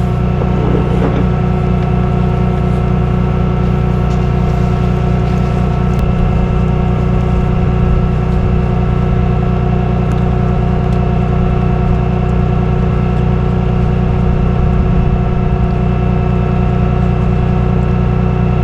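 Tow truck engine running at a steady speed: a low drone with steady tones above it that do not change.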